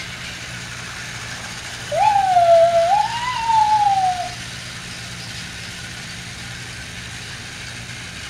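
Battery-powered toy train motors whirring steadily. About two seconds in, a louder whistle-like tone wavers up and down for a couple of seconds and fades out.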